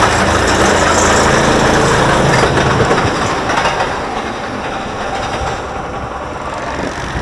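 Zamperla Windstorm roller coaster train running on its track, a steady rattling rumble that grows quieter about three seconds in.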